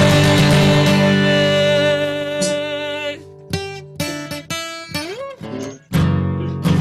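Acoustic guitar strummed: a chord rings out for about three seconds, a few shorter notes follow, and another strummed chord comes near the end.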